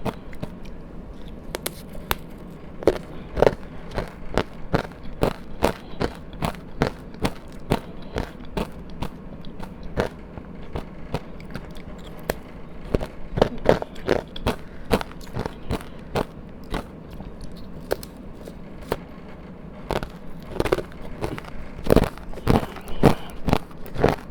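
Close-miked biting and chewing of powdery ice coated in matcha powder: a dense, irregular run of sharp crunches, several a second.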